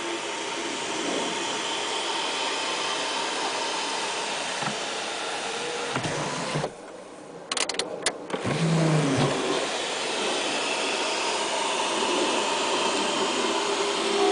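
Steady rushing noise in a VW's cabin. About seven seconds in it drops away for a few sharp clicks and a short low hum, then returns.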